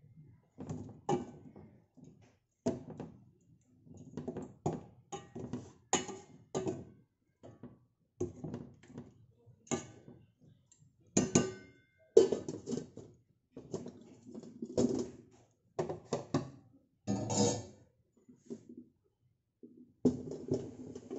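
Metal spoon clinking and scraping against a stainless steel pan as tilapia simmering in coconut milk is stirred and spooned, in irregular knocks with short pauses. Near the end the steel lid goes onto the pan and a steadier sound follows.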